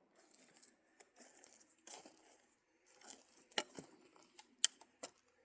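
Faint handling noises: light rustling with a few short sharp clicks and knocks, the loudest of them about three and a half and four and a half seconds in.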